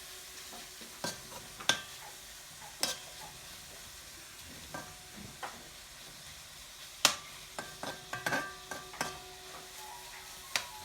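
Ginger sizzling in hot cooking oil in a pan while it is stirred, with a utensil knocking against the pan now and then, the loudest knock about seven seconds in.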